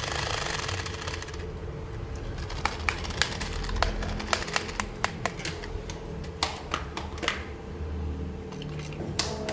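Small plastic toy parts being handled: a rustling for about the first second and a half, then irregular sharp clicks and taps of hard plastic.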